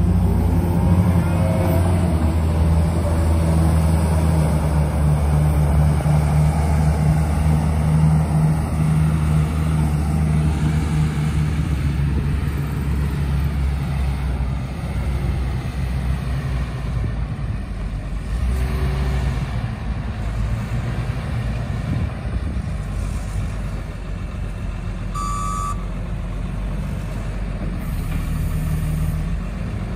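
Komatsu WA250-5 wheel loader's six-cylinder diesel engine running steadily as the loader drives, loudest in the first ten seconds and then a little quieter. A short, high beep sounds a few seconds before the end.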